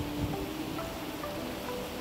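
Background music: a light melody of short, steady notes over a constant noisy hiss.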